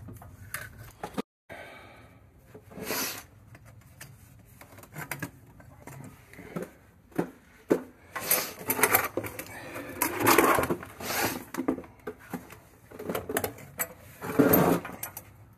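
Irregular knocks, scrapes and rustles of copper pipe, a level and tools being handled and moved about, in several clusters with the busiest stretch in the middle and another burst near the end.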